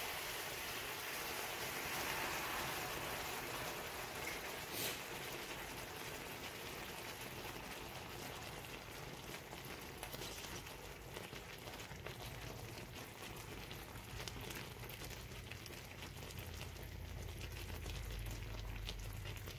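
Hot honey-garlic glaze pouring from a saucepan into a cast-iron skillet of fried chicken thighs, bubbling and sizzling with a steady fine crackle. A single short tap about five seconds in.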